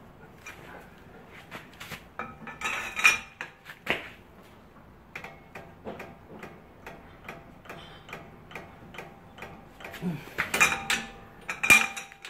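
Ratchet wrench and metal hand tools at a car's front wheel hub, tightening the new CV axle's hub nut: a run of small ticking clicks, with louder metallic clinks about three seconds in and again near the end.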